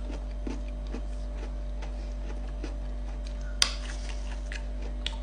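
Faint, soft ticks repeating about every half second over a steady electrical hum, with one sharper click about three and a half seconds in.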